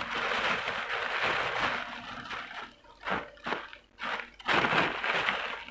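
Rustling and crunching of packaging being handled: about two seconds of steady crinkling, then several short crunchy bursts.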